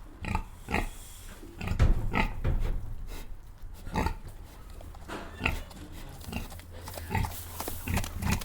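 Domestic pigs grunting: short grunts one after another at an irregular pace.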